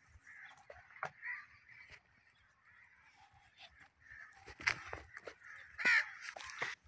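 Several short animal calls, the loudest about six seconds in, with a few knocks and scuffs between them.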